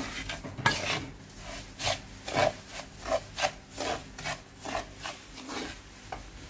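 Spoon stirring and scraping bulgur as it fries in olive oil in a frying pan, in short strokes about twice a second.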